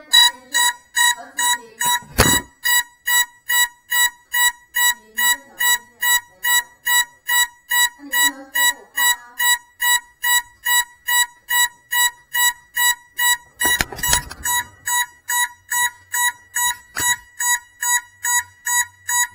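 An electronic beeper, likely the FPV drone's own buzzer, sounding one high beep over and over at about two and a half beeps a second without changing pitch. A few knocks and rattles sound over it, the loudest about two seconds in and a longer rattle about two-thirds of the way through.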